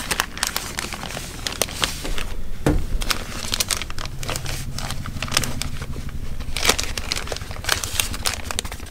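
Thin plastic bag crinkling and crackling in irregular bursts as a pair of welding gloves is pushed back into it, with a thump about three seconds in.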